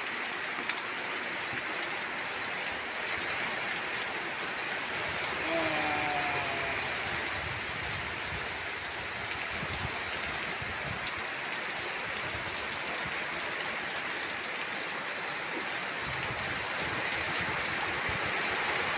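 Heavy rain falling steadily on roofs and foliage.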